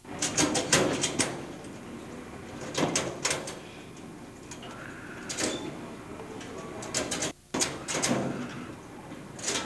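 Steel school lockers being opened: padlocks and latches clicking and metal locker doors clanking, in several clusters of sharp knocks with a brief gap about seven and a half seconds in.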